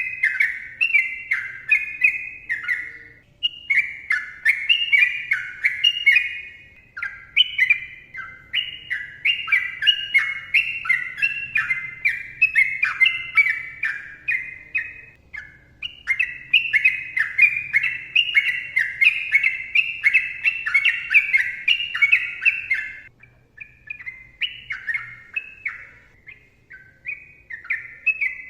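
Sooty-headed bulbul singing in long, rapid runs of chirping notes, with brief pauses between runs.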